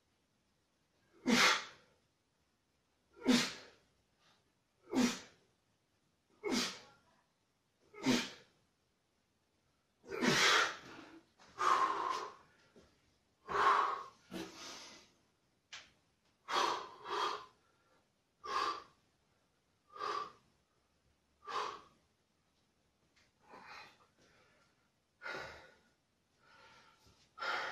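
A man's sharp, forceful exhalations, one with each repetition of a seated overhead dumbbell triceps extension, about every second and a half. From about ten seconds in, longer and heavier breaths come at uneven intervals as he recovers after the set.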